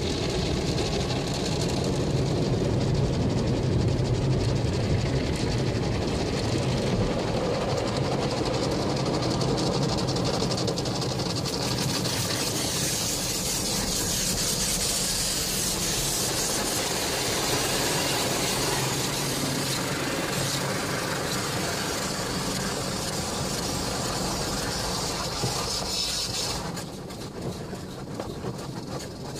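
Automatic car wash heard from inside the car: the wash machinery runs with a low hum as the brushes pass, then from about twelve seconds in a loud hiss of water spray beats on the windshield and body, cutting off suddenly near the end.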